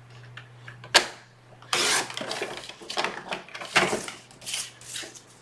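Gold cardstock being trimmed by hand: a sharp click about a second in, then a run of uneven rasping cutting and paper-rustling strokes that stops near the end.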